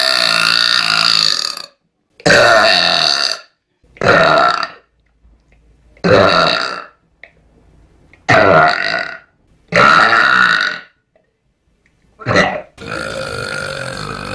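A person burping loudly, about seven long, pitched burps one after another with short pauses between them. A steadier, continuous sound starts near the end.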